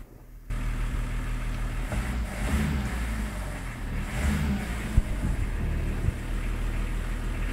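Range Rover P38 engine idling with a steady low drone, with a sharp click about five seconds in and a smaller one a second later.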